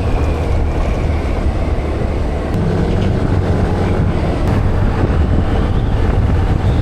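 Loud, steady wind rush over the microphone on a moving scooter, with the scooter's engine and road noise underneath.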